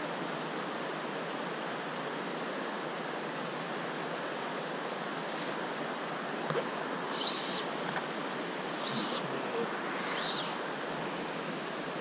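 Steady rushing of stream water flowing into a pool, with a bird's short, high chirping calls four times in the second half.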